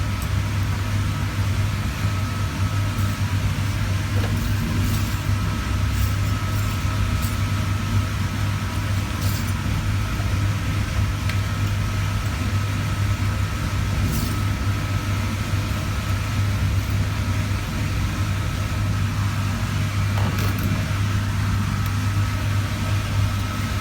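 Steady low mechanical hum at an even level, with a faint high tone and a few light clicks.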